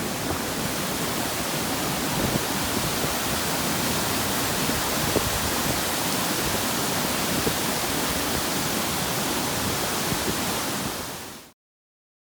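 Waterfall's steady rush of falling water, cutting off abruptly near the end.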